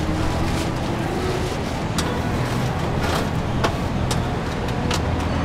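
Steady low motor hum, with a few sharp clicks about two, three and a half and five seconds in as bananas are cut from the bunch and peeled with a knife.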